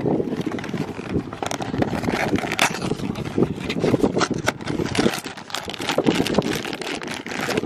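Wind buffeting the microphone as an uneven rumble, with irregular crackles and rustles from handling throughout.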